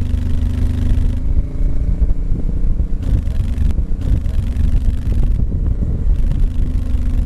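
A motorcycle's engine running as the bike speeds up, mixed with heavy, uneven wind rumble on the on-board microphone.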